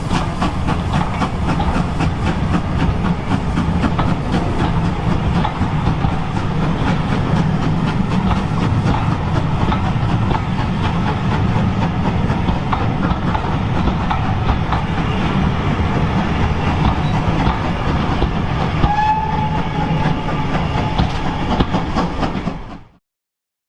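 A heritage railway train running along the track, its wheels clattering steadily over the rail joints, with a brief high whistle-like tone about three-quarters of the way through. The sound cuts off abruptly near the end.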